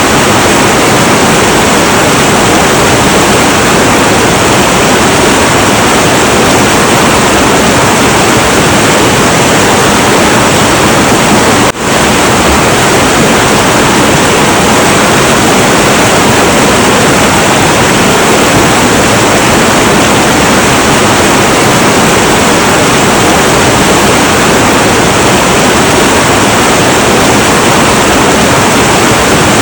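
Heavy, turbulent river water rushing in a loud, steady roar. The level dips for a split second about twelve seconds in.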